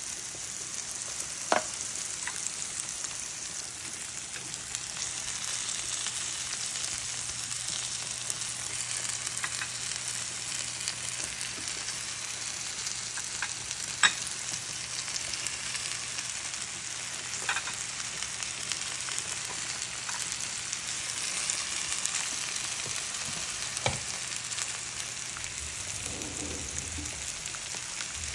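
Sliced zucchini, onion and red bell pepper sizzling steadily in a nonstick frying pan, with a few sharp clicks scattered through.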